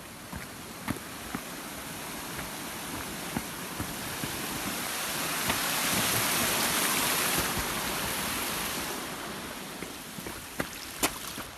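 Rushing water of a flood-swollen mountain stream, swelling to its loudest a little past halfway and then fading again. A few sharp clicks sound over it, several near the end.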